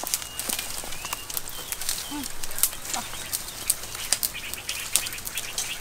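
Dry brush and twigs rustling, with many sharp cracks and snaps as dry branches and vines are pulled and broken by hand.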